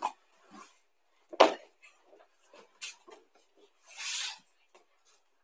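Quiet handling noises of a judo throwing dummy on the mats as it is picked up and lifted: a dull thump about a second and a half in, a click near three seconds, and a short rustle around four seconds.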